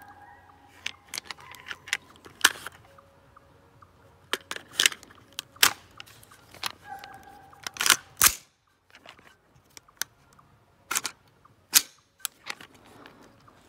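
AR-15 rifle's action worked by hand: a series of sharp metallic clacks and snaps, about a dozen spaced irregularly, the loudest a little over two seconds, five and a half seconds and eight seconds in.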